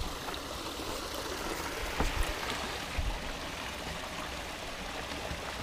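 Steady rushing noise, with a few faint knocks about two and three seconds in.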